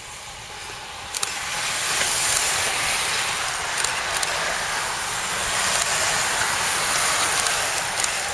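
A bunch of racing road cyclists sweeping past: a hissing rush of tyres and wind that swells about a second in and eases near the end, with a few sharp clicks.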